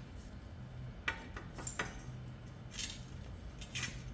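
Tile nippers nibbling the rough edge off a ceramic tile: four or five short, sharp clinking snaps spread over a few seconds as small bits of tile are nipped away.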